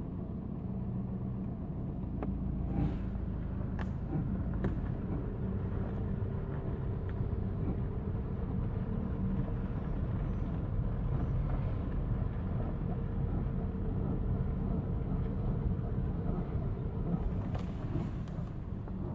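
Car creeping along at full right steering lock: a low, steady running rumble, with a faint squeak held through the middle and a few sharp ticks. The squeak is of unknown cause and shows up only when turning right or braking.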